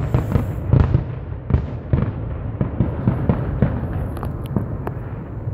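Aerial fireworks going off at the close of a finale barrage: a rapid string of booms and crackles over a low rumble, thinning out and growing quieter toward the end.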